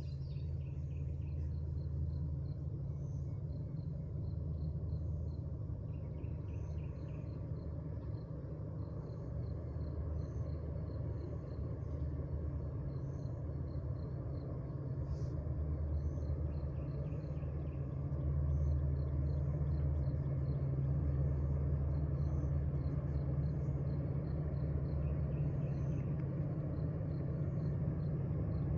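Low, steady rumble of an approaching freight train's diesel locomotives, an SD70ACe and an AC44C6M, growing louder about two-thirds of the way in. Insects chirp steadily over it, with a few short bird calls.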